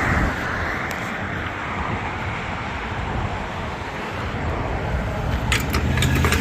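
Road traffic at an intersection: vehicles passing with a steady rush of tyre and engine noise that swells in the first couple of seconds. A few sharp clicks come near the end.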